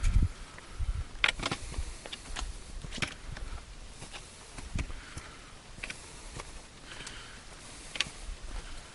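Footsteps on a trail: irregular crunches and knocks about once or twice a second, with a few low bumps near the start.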